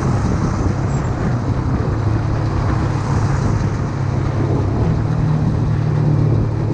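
Honda CBX 250 Twister's single-cylinder four-stroke engine running steadily through its exhaust, a low, even engine note.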